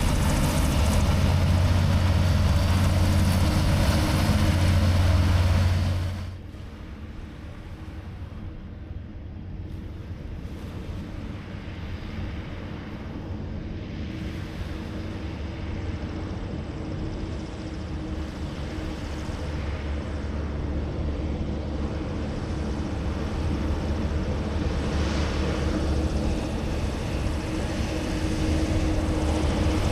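Griffon Hoverwork 12000TD hovercraft: loud engine and fan noise with a deep hum for about six seconds, then a sudden drop to a distant hovercraft that grows steadily louder as it approaches across the water.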